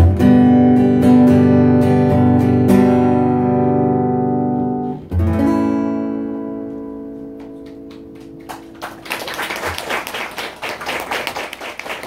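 Acoustic guitar strumming the closing chords of a song, with a last chord struck about five seconds in and left to ring out and fade. About nine seconds in, applause starts.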